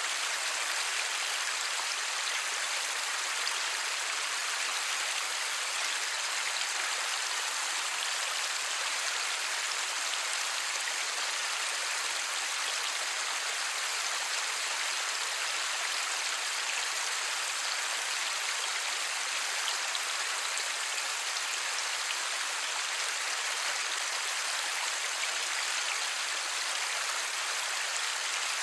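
Steady light rain: an even hiss of many small drops, without thunder.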